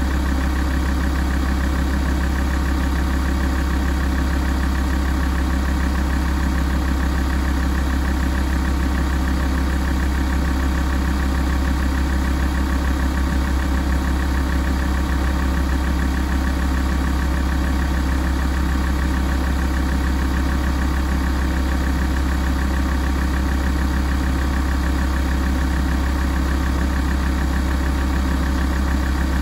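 Alfa Romeo 166's 2.4 JTDm five-cylinder common-rail turbodiesel idling steadily while warming up.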